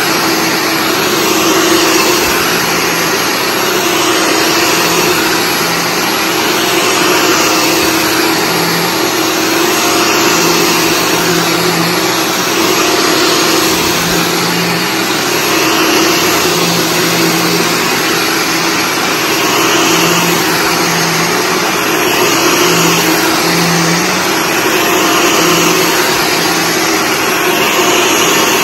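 Shark Stratos upright vacuum cleaner running on carpet, its motor hum and brushroll steady, the sound swelling and easing about every two seconds as it is pushed forward and pulled back.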